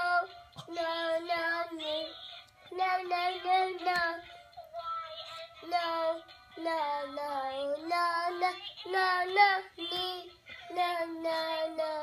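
A toddler singing a tune in short phrases of held notes with brief breaks between them.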